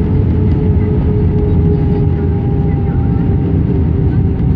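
Steady cabin noise inside an Airbus A319-132 descending on approach: a loud, low rush of airflow and the IAE V2500 turbofan engines, with a droning tone that sinks slightly in pitch.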